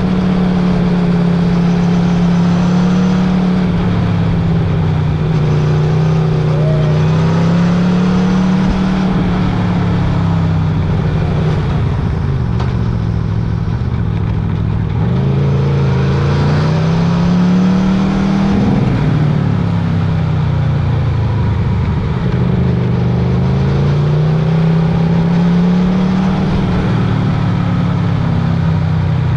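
Motorcycle engine running under way, its revs climbing and dropping several times over the stretch.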